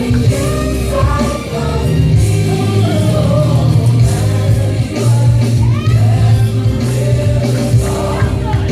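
Gospel praise team singing with a band, strong steady bass notes under the voices.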